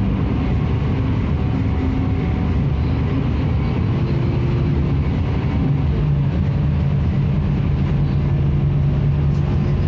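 Scania K310IB city bus's five-cylinder diesel engine running under way, heard from inside the passenger cabin with steady road and tyre noise. The engine hum grows a little louder about six seconds in.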